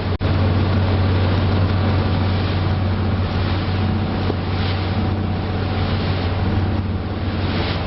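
Engine of a small passenger ferry running steadily under way, a strong low hum under rushing wind and water noise.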